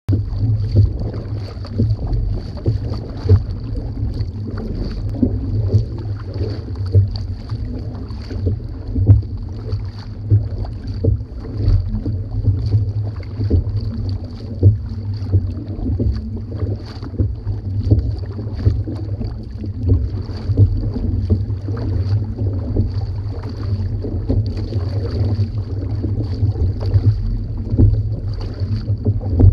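Kayak paddle blades dipping into the sea and splashing with each stroke, about once a second, over water rushing along the hull. Under it runs a steady low rumble of wind on the microphone.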